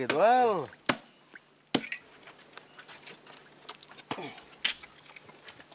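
A short shout, then two sharp knocks of a tool striking dead mangrove wood as it is broken open for mangrove worms, followed by scattered faint clicks and crackles of the wood.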